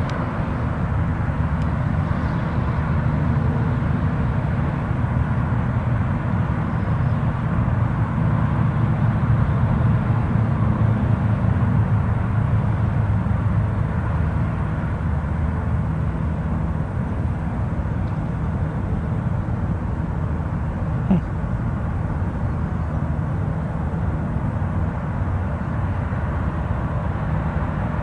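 Steady low rumble of outdoor background noise, with one faint click about 21 seconds in.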